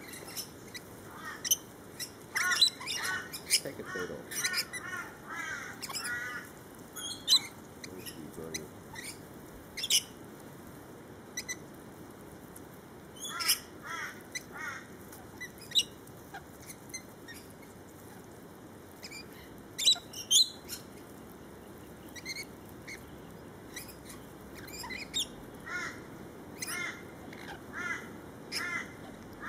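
A flock of rainbow lorikeets feeding at close range, giving sharp screeches and runs of rapid chattering calls in irregular flurries, with fewer calls in the middle stretch.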